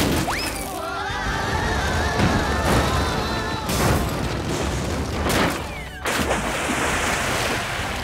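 Cartoon sound effects of a large boat sliding down a rocky slope: a low rumbling slide with several sharp crash-like hits about four, five and six seconds in, over background music.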